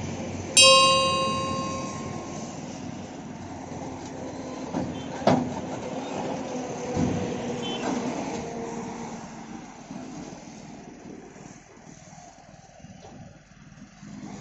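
A JCB 30 Plus mini excavator's diesel engine runs steadily as the arm is lowered. About half a second in, a loud metallic ring sounds once and dies away over a second or two. A few short knocks follow later.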